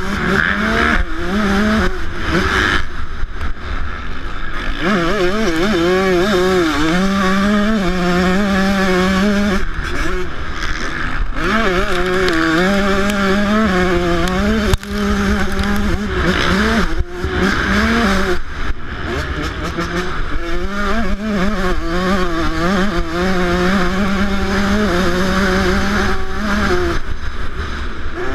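125cc two-stroke motocross bike engine revving hard on a helmet-camera lap, its note rising and falling with the throttle and dropping out briefly several times at shifts and off the gas.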